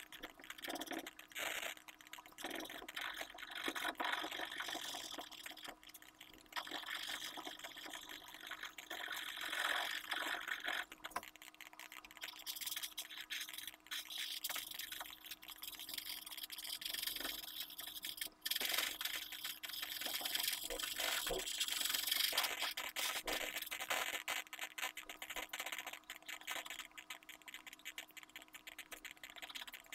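Pencil rubbing and scratching on drawing paper in irregular, repeated shading strokes.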